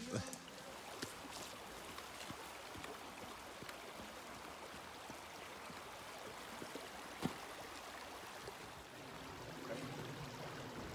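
Shallow glacial meltwater stream running steadily across a silty outwash flat, with a single short click about seven seconds in.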